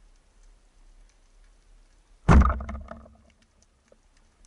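Band-powered speargun fired underwater about two seconds in: one sudden loud crack as the rubber bands release and the shaft is driven into a large barracuda, dying away in under a second. Faint underwater ticking and crackle before the shot.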